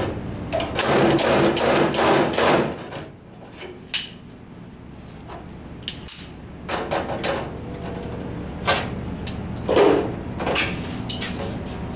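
Slide-hammer dent puller knocking as it yanks on pins welded to a steel VW Beetle door skin to draw out a dent. A quick run of about five knocks comes about a second in, then spaced single knocks follow later.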